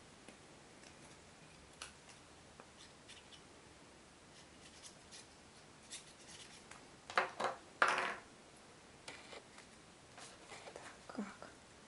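Hands handling thin paper strips and a glue tube on a table: faint rustling and small ticks, with a louder burst of paper rustling about seven to eight seconds in.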